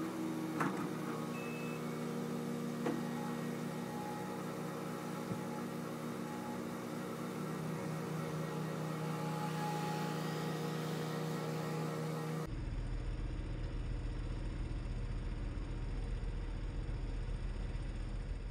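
Skid steer loader engine running steadily as the machine works, with two sharp knocks in the first three seconds. About two-thirds of the way through, the sound changes abruptly to a duller, deeper rumble.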